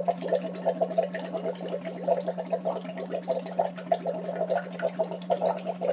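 Straw phonation into a glass of water, a semi-occluded vocal tract voice exercise: a voice holds one steady hummed pitch through the straw while the water bubbles unevenly.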